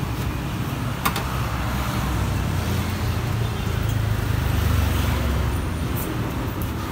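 Low vehicle engine rumble of passing road traffic, swelling midway as a vehicle goes by and then easing off, with a sharp click about a second in.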